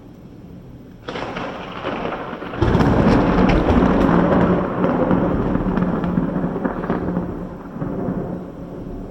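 Thunderclap: it breaks with a sudden crack about a second in, turns into a loud, deep rumble about two and a half seconds in, and slowly dies away over the following seconds.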